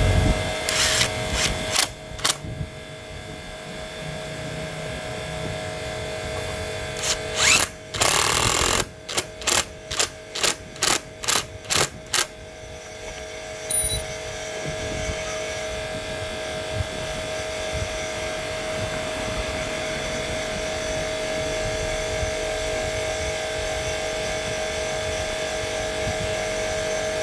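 A small engine running steadily with a constant whine. About eight seconds in comes a loud burst of noise, followed by a quick series of about eight sharp knocks, roughly two a second.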